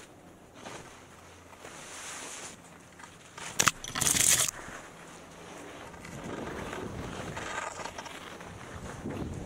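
Skis swishing through deep powder snow, with a loud brushing swish about four seconds in as a snow-laden fir branch sweeps across the camera. Wind noise on the microphone builds near the end.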